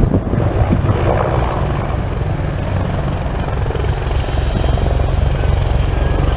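Sikorsky CH-53 heavy transport helicopter in flight, its six-bladed main rotor beating with a steady, deep, pulsing chop.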